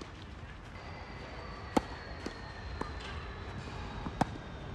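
Tennis ball struck by rackets in a rally: two sharp hits about two and a half seconds apart, with a few fainter ball bounces between them.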